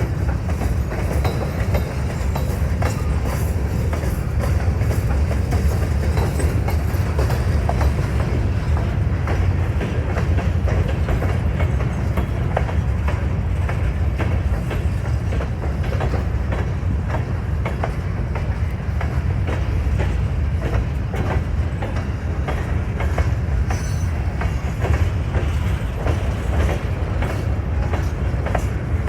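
Freight cars of a grain train rolling past: a steady low rumble with the rapid clickety-clack of wheels over rail joints.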